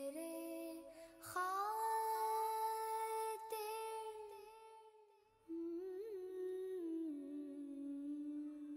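Background music: a voice humming a slow melody in long held notes, in two phrases with a short break in between.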